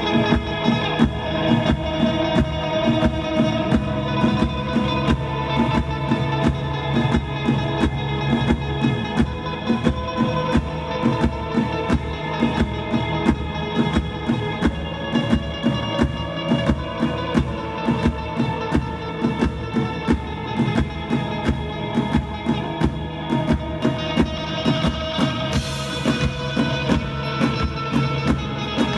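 Live band playing an instrumental passage: a drum kit keeping a steady beat over guitar and bass.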